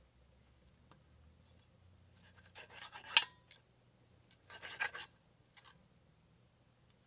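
A table knife scraping and sawing against a speckled enamelware frying pan as meat is cut in it: two short bursts about two seconds apart, the first the louder, with a few light clicks of knife and fork.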